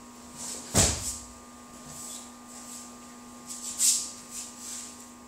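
A body thuds onto the practice mat in a breakfall about a second in, and short brushing swishes of feet and uniforms on the mats come throughout, the sharpest near four seconds.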